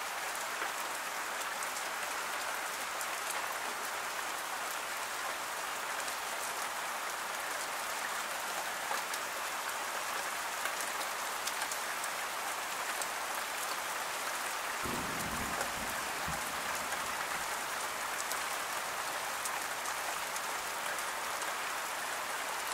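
Steady rain falling through spruce trees: a dense, even hiss of fine patter. A brief low rumble comes about two-thirds of the way through.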